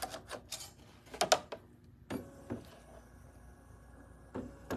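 Plastic embroidery hoop being handled and seated on a Bernina 790 Pro's embroidery module: a run of light clicks and knocks, then a faint steady mechanical whir from the machine for about two seconds, ending with another click.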